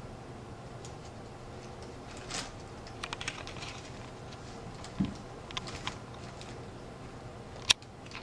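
Light scratching and tapping of cats' paws and claws on a cardboard box, in scattered clicks, with a soft thump about five seconds in and a sharp click near the end.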